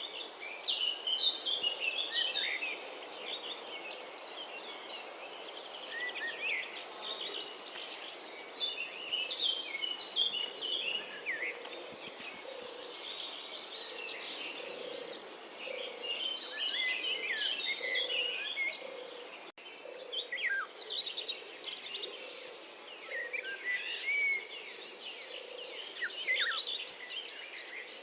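European robin singing its winter song: a string of varied, high, thin warbling phrases, with a brief break about two-thirds of the way through.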